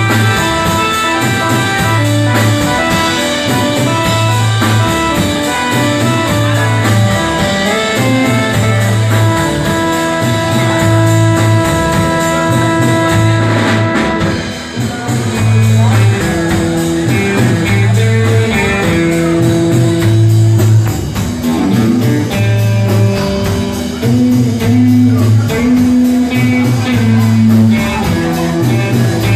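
A live rock band playing an instrumental passage, with guitar over a repeating low riff and long held notes above it. There is a brief drop in loudness about halfway through.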